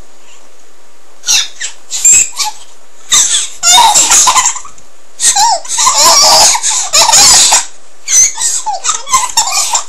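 Silly noises made with the voice, sliding up and down in pitch in loud, irregular bursts starting about a second in.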